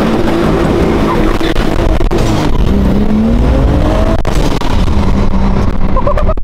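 BMW-engined, single-turbo Subaru WRX heard from inside the cabin under hard acceleration: the engine note climbs steadily in pitch, breaks off with a gear change about four seconds in, then pulls on at a lower pitch.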